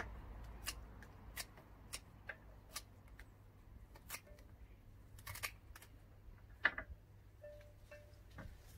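Scissors snipping through sunflower stems: a scattered series of short, sharp clicks, some in quick pairs.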